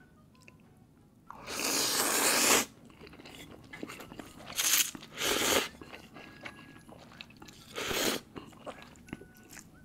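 A person eating instant laksa noodles close to the microphone: one long noisy burst of eating sound, then three shorter ones, with quieter chewing between.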